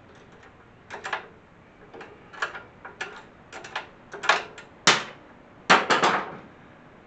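Irregular metal clicks and clinks of a hand tool and hardware being worked on a steering column mount, some ringing briefly. The loudest come in a cluster a little past the middle.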